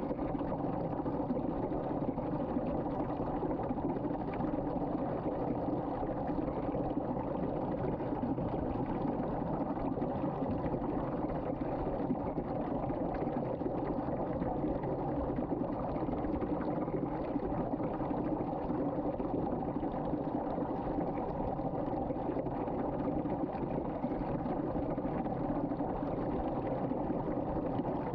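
Water swirling down a sink drain in a vortex: a steady, unchanging rushing of water, heaviest in the low end.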